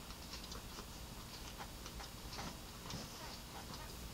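Close-miked chewing of a mouthful of scrambled eggs with the mouth closed: faint, irregular soft mouth clicks.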